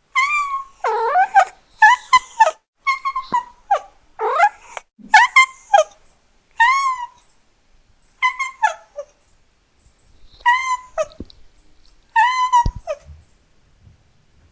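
A cat meowing over and over: a string of short, high meows, several sliding down in pitch at the end, coming quickly at first and then with pauses of a second or two between them.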